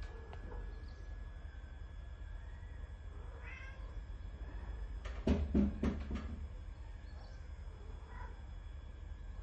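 Domestic cat meowing: a short rising meow about three and a half seconds in, then a quick cluster of louder, short sounds from about five to six seconds in, and a faint call near the end.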